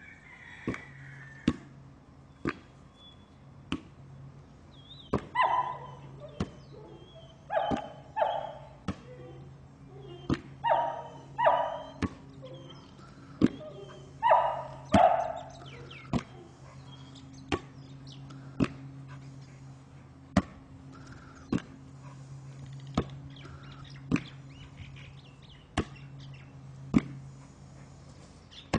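A ball thumping sharply as it is hit back and forth between a person and a dog, about once a second. A dog barks excitedly in quick pairs of short barks through the middle stretch.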